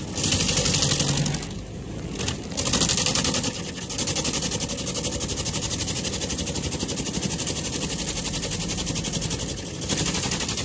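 Vermeer FT300 stump grinder running, its toothed cutter wheel chewing into a wood stump in a dense, continuous grinding clatter. It goes briefly quieter a few times, about two seconds in and near the end.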